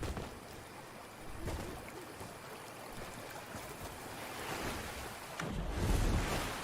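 Handling noise: rustling with a few soft knocks, and a louder low rumble about five and a half seconds in.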